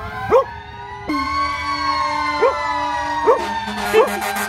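Sirens of several approaching emergency vehicles, a fire truck and police cars, wailing together in overlapping slowly gliding tones. Four short, loud rising-and-falling yelps break over them, the loudest about half a second in.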